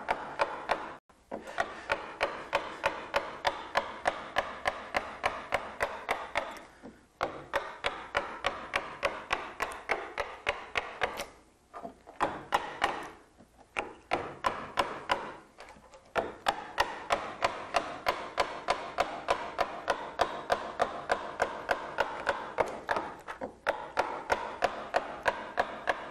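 Round wooden carver's mallet striking a carving gouge into a wood relief blank: a steady rhythm of sharp knocks, about two to three a second, with short pauses every few seconds. The gouge is roughing out waste wood.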